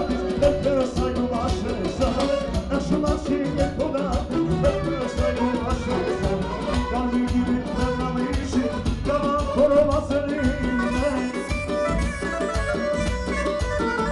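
Live band music: a clarinet and an electronic keyboard playing over a steady drum beat, with a man singing into a microphone at first.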